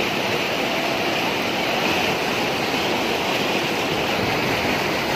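Muddy floodwater rushing steadily over a breach in an earthen road embankment, a continuous loud wash of water.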